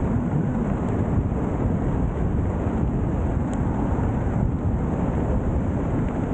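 Airflow buffeting the camera's microphone during parachute canopy flight: a steady, low rush of wind noise.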